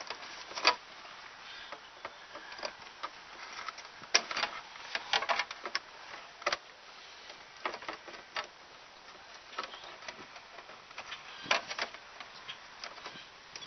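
Hand screwdriver turning the screws of a licence plate on a truck tailgate: scattered small metallic clicks and scrapes at irregular intervals.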